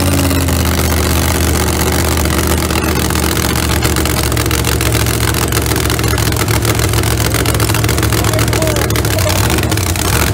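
Mega truck engines running with a steady, loud, low drone.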